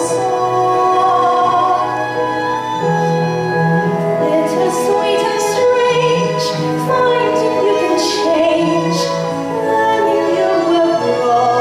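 A woman singing a slow, sustained ballad over instrumental accompaniment, accompanying a stage dance.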